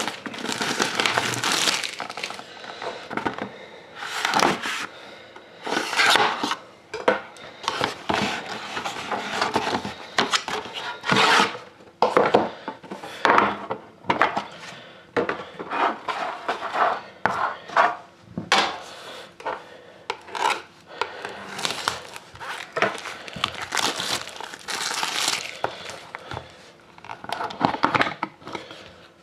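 Plastic wrapping crinkling and a sealed trading-card box being handled and opened, with irregular rustles, clicks and light knocks.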